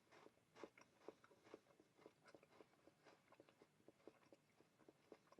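Faint crunching of a crisp KitKat wafer bar being chewed: a string of small, irregular crunches that grow sparser toward the end.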